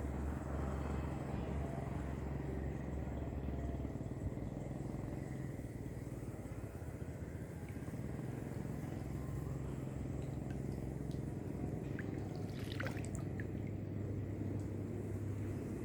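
Steady low engine drone whose pitch shifts a couple of times, with a brief higher-pitched sound near the end.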